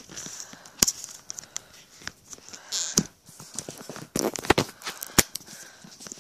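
Handling noise from a phone held close to its microphone: fingers rubbing and brushing on it, with sharp clicks and knocks, the loudest clustered about four to five seconds in.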